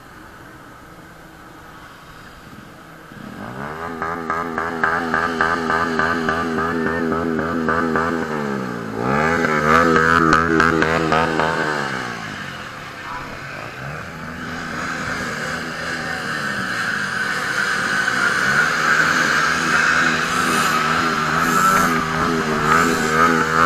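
Motorcycle engine running at low speed with the throttle worked: its pitch climbs about three seconds in, drops sharply and picks up again around nine seconds, and wavers up and down the rest of the time.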